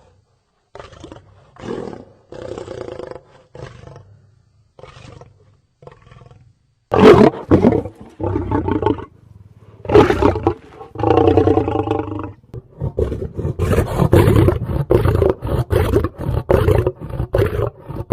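Lion-type roaring presented as a cave lion (steppe lion) sound effect. It opens with short, separate grunts and growls, then a full roar starts about seven seconds in, the loudest part. Long pitched roars follow, ending in a quick run of short grunts near the end.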